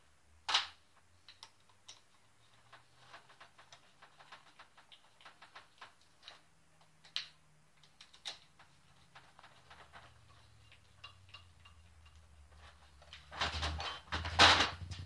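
Light irregular clicks and ticks of a screwdriver working screws into an angle grinder's gear housing, with small parts being handled. Near the end, a louder clatter in two bursts as the grinder and its parts are moved about on the sheet-metal workbench.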